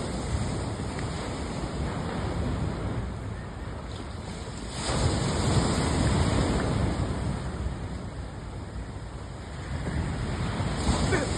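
Wind buffeting the microphone, a low rushing noise that swells about five seconds in and again near the end.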